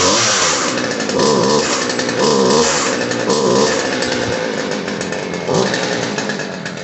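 Poulan 2550 Woodmaster two-stroke chainsaw engine running, its revs sagging and recovering about once a second as the throttle is worked, then running rougher. The bogging on throttle is put down by the owner to a high-speed carburetor mixture setting that needs turning out.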